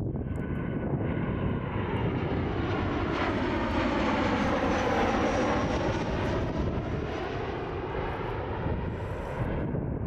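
Airplane passing low overhead, its engine noise swelling to its loudest about halfway through and then fading, with a faint high whine that drops slightly in pitch as it goes by.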